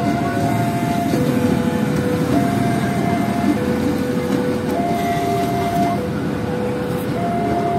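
KRL Commuter Line electric train passing close by, its wheels on the rails making a steady loud rumble. Over it a two-tone warning signal alternates between a high and a low tone, switching about once a second.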